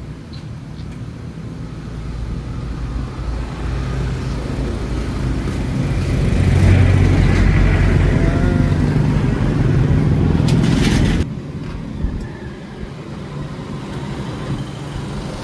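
Kawasaki Barako motorcycle's single-cylinder engine running, growing louder over the first several seconds, then dropping suddenly about eleven seconds in.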